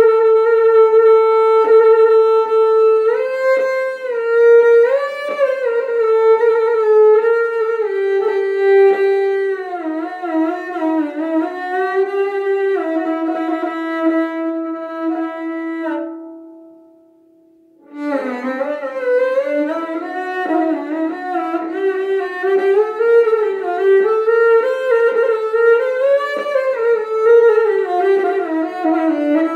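Music: a solo bowed string instrument, violin-like, playing one slow melodic line with slides and wavering between notes. It fades away a little past the middle and starts again about a second and a half later.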